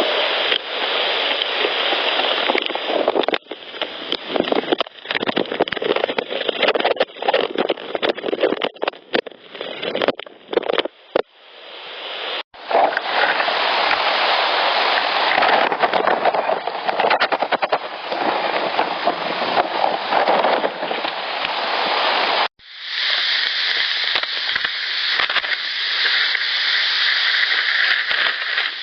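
Handling noise on an unattended field audio recorder: loud rubbing and scraping on the microphone with many sharp clicks and knocks, which the recordist attributes to a Sasquatch handling the recorder. The sound cuts out abruptly twice, about twelve and twenty-two seconds in, where one clip gives way to the next.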